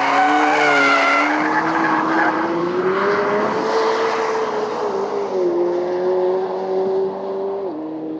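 McLaren 765LT's twin-turbo V8 running hard while the car drifts, with the rear tyres squealing and skidding. The engine note climbs over the first few seconds, then drops in two steps, about midway and near the end.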